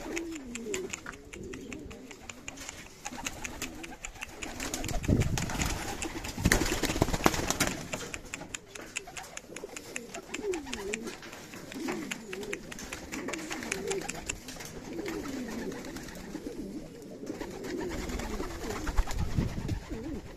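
Domestic pouter pigeons (buchón breeds) cooing over and over, each coo rising and falling in pitch, amid many small clicks. A few dull thumps come about a quarter and a third of the way in and again near the end.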